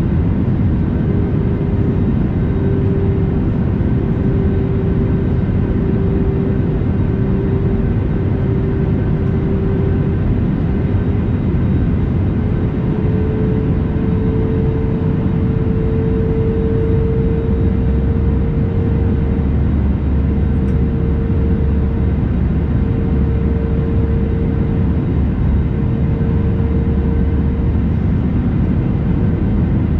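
Airbus A320neo airliner's jet engines and airflow making a steady, loud roar, with an engine hum that rises slightly in pitch about halfway through.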